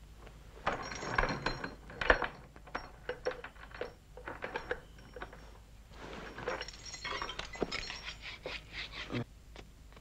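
Metal latches and lock on a tall metal cabinet door being rattled and worked by hand: rapid clicking and clanking, with one sharp metallic knock about two seconds in and a second burst of clattering from about six to nine seconds.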